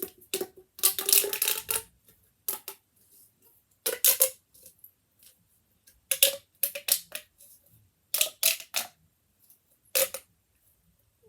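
Small hard plastic fidget toys clattering and knocking against each other as they are handled and rummaged through, in irregular bursts of clicks, some with a brief ring.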